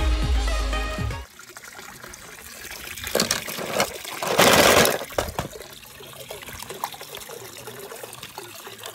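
Film-soundtrack music for about the first second, then water in a swimming pool sloshing and trickling as a hand reaches into it, with one louder splash about halfway through.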